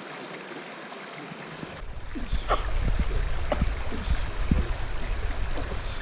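Shallow mountain stream running over stones, a steady rushing hiss. About a second and a half in, a low rumble joins it and the whole sound grows louder.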